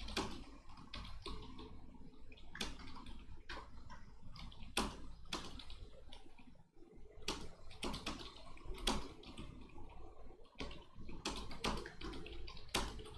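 Computer keyboard being typed on steadily: an irregular run of keystroke clicks, several a second, with a few sharper clacks among them, during a timed typing-speed test.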